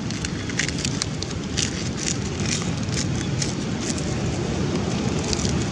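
Wind rumbling steadily on the microphone outdoors, with scattered light crackling ticks throughout.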